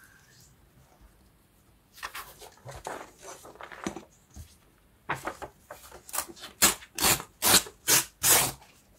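Scissors cutting a sheet of scrapbook paper in half: soft paper rustles at first, then a run of about eight crisp snips, two or three a second, loudest near the end.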